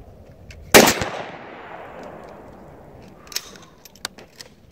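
A single shot from an AR-style rifle fired through a scope being zeroed, about a second in, its report echoing and dying away over the next second. A few small sharp clicks follow near the end.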